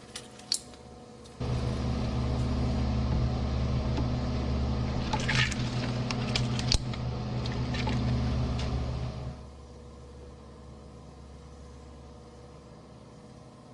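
A small electric shredder's motor starts abruptly about a second and a half in and runs with a steady hum, with sharp crackling snaps near the middle as a rubber toy spider is crushed in its cutters; a little over two-thirds through it drops back to a low background hum. A couple of sharp clicks come in the first second.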